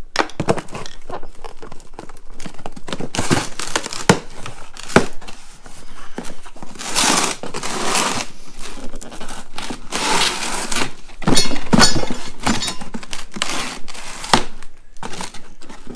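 Cardboard parts boxes being handled: flaps rubbing, scraping and crinkling in irregular bursts, with a few sharp knocks as metal brake parts are packed into them.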